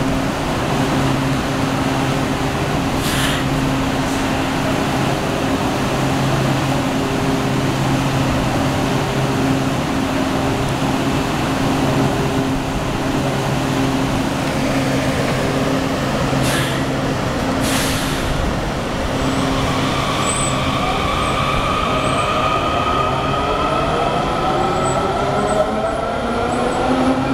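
Washington Metro 7000-series railcars standing with a steady hum from their rooftop air-conditioning and auxiliary equipment. Short hisses of air come about 3 seconds in and twice around 17 seconds in. From about 19 seconds in, the electric propulsion sets a whine of several rising tones as the train starts to pull away.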